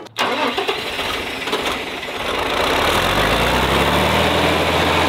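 John Deere farm tractor's engine running, its low steady note growing louder and more even about halfway through.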